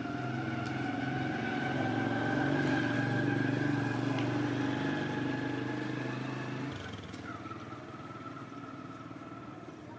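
A motor vehicle's engine running steadily, swelling to its loudest about three seconds in and then fading, its low hum cutting off about two-thirds of the way through.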